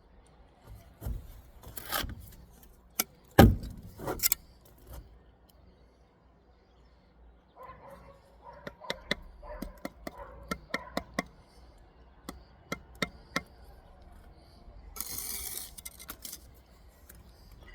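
A bricklayer's steel trowel knocking and tapping bricks down into their mortar bed: a few sharp knocks, the loudest about three and a half seconds in, then a run of quick light taps, and a short scrape of trowel on mortar near the end.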